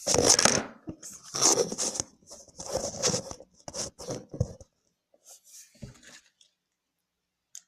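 Large, fairly stiff clear-glue slime being squeezed and pulled in the hands, giving several crackly tearing bursts over the first four and a half seconds, then faint handling.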